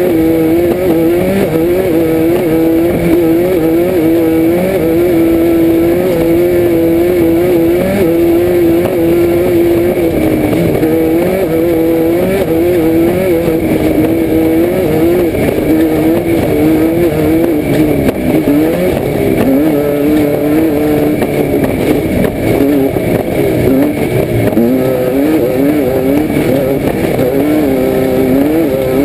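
Class 5-1600 Baja Bug's air-cooled VW flat-four engine running hard, heard from inside the car, its pitch rising and dipping about once a second as the throttle works, with a deeper drop and a climb back up through the revs a little past halfway. A steady haze of driving noise lies under it.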